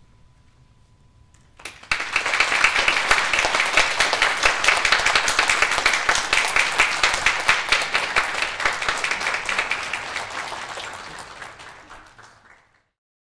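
Audience applause breaks out about two seconds in, holds steady, then fades away near the end.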